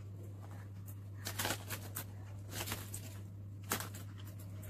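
Plastic toy-egg capsules and their plastic wrappers being handled. There are a few short clicks and rustles, about a second in, past two and a half seconds, and near the end, over a steady low hum.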